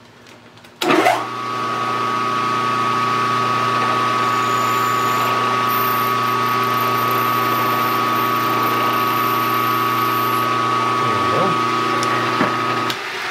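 A geared-head milling machine's spindle switched on about a second in and running steadily with a high whine while a 1/16-inch drill is fed into the workpiece; it shuts off just before the end.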